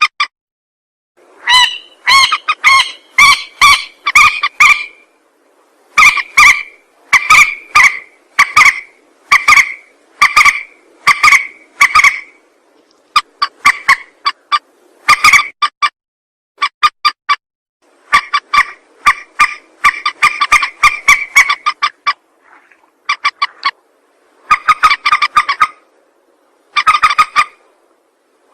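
Mandar (rail) calls from a lure recording: loud, harsh notes repeated in quick series lasting a few seconds each, with short pauses between the series.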